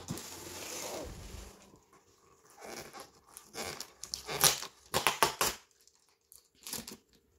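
Clear packing tape being peeled off a cardboard box: a steady peeling rasp at first, then a run of sharp crackling rips, loudest about four to five seconds in.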